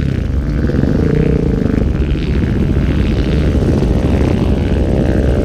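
Trail motorcycle engine running steadily, its pitch wavering slightly.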